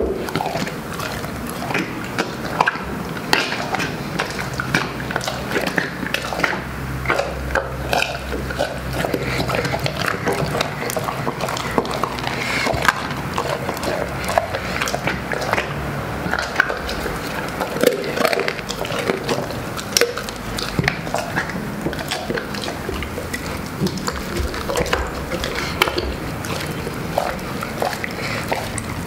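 Large dog eating a roast chicken: continuous wet chewing and smacking, with many sharp crunches as it bites through the bird.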